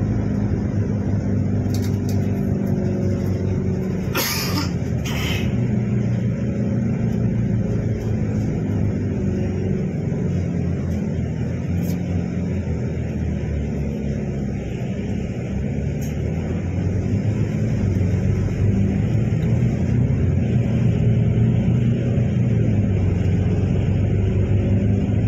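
City bus engine and drivetrain running under way, heard inside the cabin, the engine note shifting up and down with speed and growing louder in the last third. Two short hisses come about four and five seconds in.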